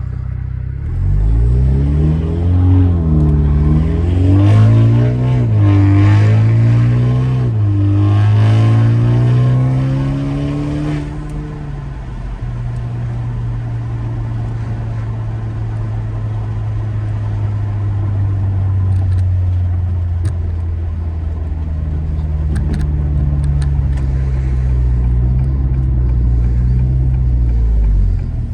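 Exhaust of a 2022 Acura TLX's 2.0-litre turbo four-cylinder through a straight-pipe downpipe and muffler delete. Its pitch rises and falls several times over about ten seconds, then it settles into a steady low drone.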